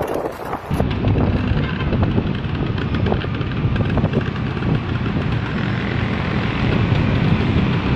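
Wind buffeting the microphone over the steady rumble of a moving vehicle on the road. The sound changes abruptly about a second in, to a denser, lower rumble that then stays steady.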